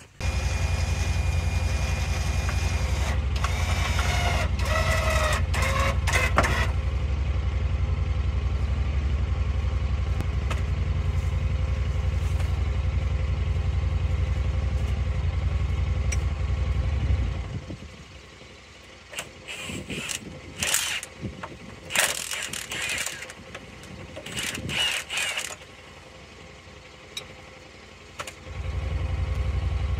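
Honda Pioneer side-by-side's engine idling steadily. The idle drops out after about seventeen seconds, leaving several short bursts of clatter, and comes back near the end.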